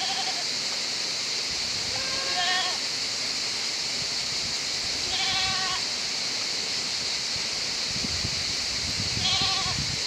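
Goats bleating, four short calls about three seconds apart, over the steady rush of a shallow river. Water splashes near the end as a goat wades out.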